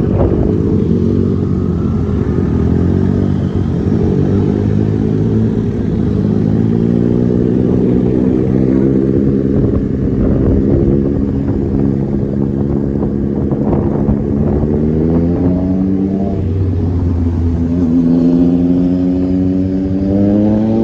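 Motorbike engine running while riding, its note wavering with the throttle and then climbing steadily over the last few seconds as the bike speeds up.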